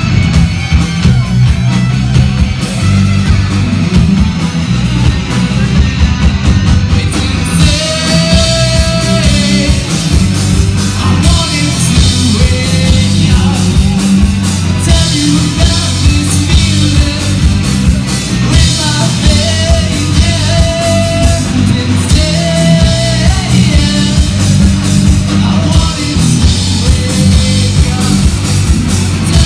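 Live rock band playing loud: electric guitars, bass guitar and drum kit, with a singer's voice coming in about eight seconds in.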